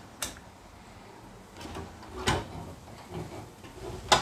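Siemens oven being opened: a control knob clicks as it is turned about a quarter second in, then the oven door clunks open, with a knock just past two seconds and the sharpest, loudest knock near the end.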